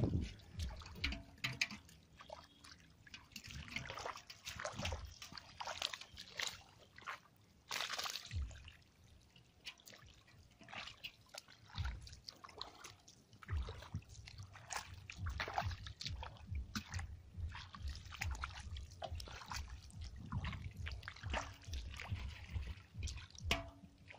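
Bare feet splashing and squelching through shallow water over mud, in irregular steps with small sloshes and drips.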